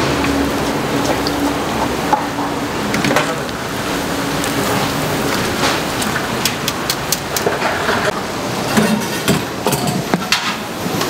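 Battered food deep-frying in a large pot of hot oil: a steady, dense crackling sizzle. In the second half, sharp clicks and clinks come through the sizzle.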